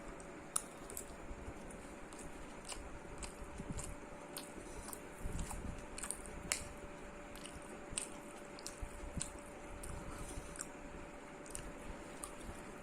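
A person chewing mouthfuls of food close to the microphone, with scattered small wet clicks and smacks, over a faint steady hum.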